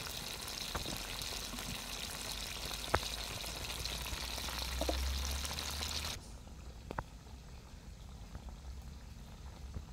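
Fish frying in plenty of oil in a wok over a wood fire: a steady sizzle that cuts off abruptly about six seconds in, leaving a much quieter background with a few sharp clicks.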